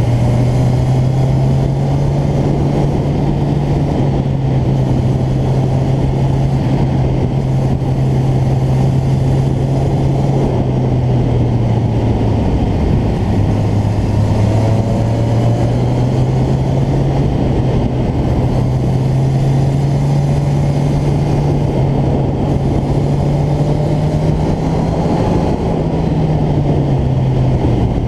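A motorcycle engine running under way, heard from on the bike with wind rushing over the microphone. The engine note dips about halfway through, climbs slowly, then falls back near the end as the bike rides through bends.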